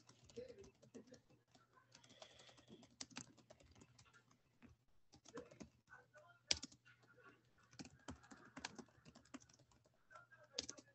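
Faint typing on a computer keyboard: irregular key clicks, with one louder click about six and a half seconds in.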